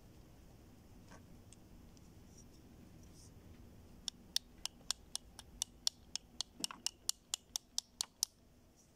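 A quick, even run of sharp light clicks, about four a second, starting about four seconds in and stopping shortly before the end; a faint click or two comes earlier.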